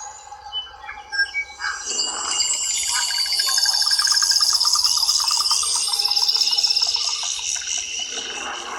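Test audio playing from a Lenovo K6 Note's bottom speaker with Dolby Atmos on: high, fast-repeating trills that build up and grow louder about two seconds in.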